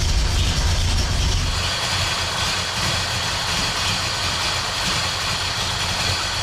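1967 Buick Special's engine idling steadily on a Holley Terminator EFI system while cold, at about 48 degrees, and warming up. The low rumble eases slightly about a second and a half in.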